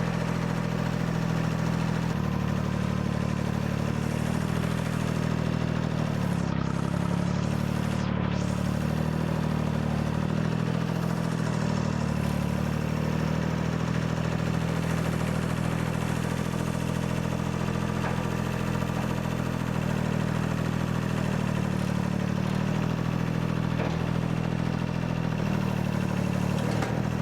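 Small gasoline engine of a sawmill running steadily at a constant speed.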